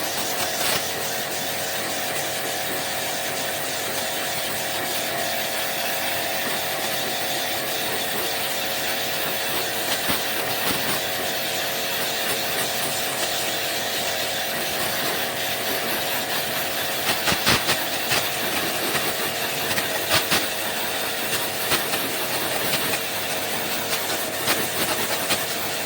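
A machine running steadily with a loud hiss and a steady hum, with scattered clicks and knocks, more of them in the second half.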